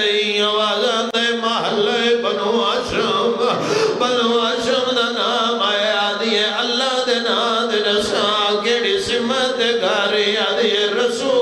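Male chanting of a Shia mourning lament (noha/marsiya), a steady sung cadence.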